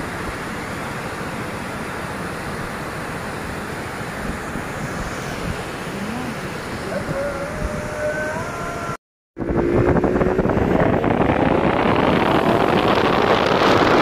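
Peugeot Pulsion scooter on the move: wind rushing over the microphone with engine and road noise. After a brief cut about nine seconds in it is louder, and the engine note rises steadily as the scooter accelerates.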